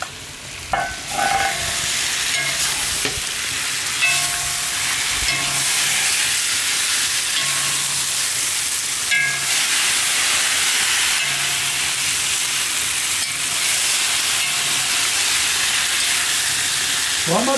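Chopped vegetables sizzling in hot oil in a metal cooking pot (kazan), stirred with a spoon. A steady frying hiss runs throughout, with a few brief metallic touches of the spoon against the pot.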